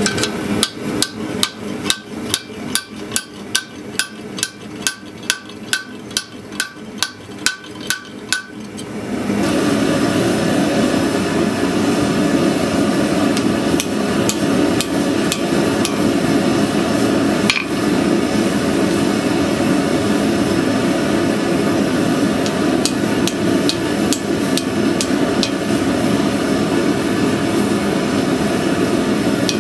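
Hand hammer blows on hot steel at an anvil, about two a second with a ringing note, for the first nine seconds. After that a steady roar, the forge running, takes over, with only occasional lighter strikes.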